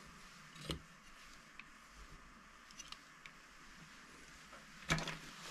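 Small tools and parts handled and set down on a silicone repair mat: a knock about a second in and a louder one near the end, with a few faint ticks between.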